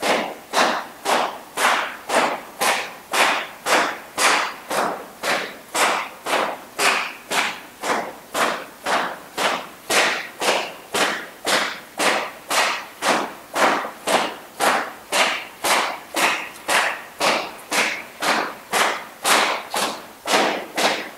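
Whip cracking rapidly and steadily, about two sharp cracks a second, each followed by a short fading tail; each crack is aimed to snuff out a candle flame in a row of candles.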